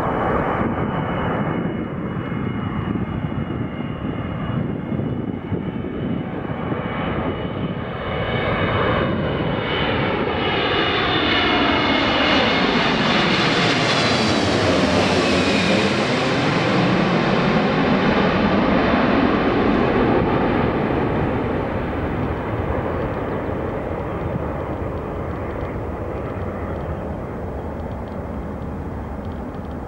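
Boeing 777-200ER airliner on landing approach flying low overhead: the jet roar of its twin engines builds, peaks about halfway through with a swirling whoosh that sweeps down and back up in pitch as it passes over, then fades steadily as it moves away.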